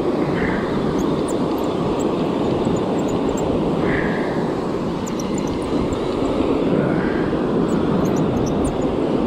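Surf breaking and washing up the sand, with wind rumbling on the microphone, as a steady noise throughout.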